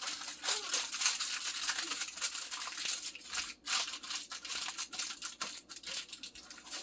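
Aluminium foil crinkling and crackling as hands fold and press it tightly into a parcel, with a couple of brief pauses about three and a half seconds in.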